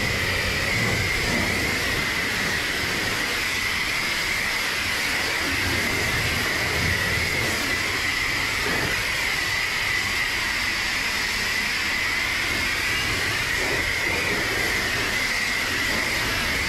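Self-serve car wash high-pressure wand spraying water onto a car's body and glass: a steady, unbroken hiss of the jet with a high edge to it.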